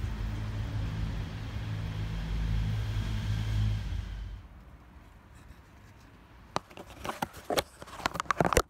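A steady low mechanical hum, like a motor running, that cuts off suddenly about four seconds in. Near the end come a string of sharp clicks and knocks.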